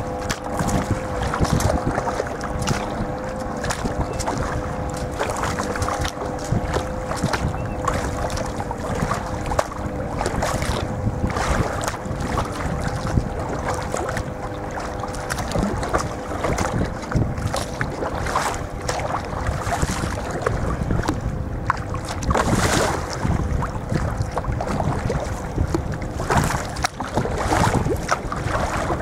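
Water splashing and sloshing around a sea kayak under way, with wind buffeting the microphone. A faint steady hum lies underneath and fades out a little over twenty seconds in.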